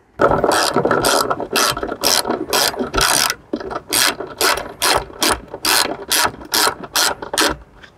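Socket ratchet wrench clicking in a run of quick strokes, about two to three a second, as it snugs up 7/16 mounting bolts on a boat seat suspension; the ratcheting stops shortly before the end.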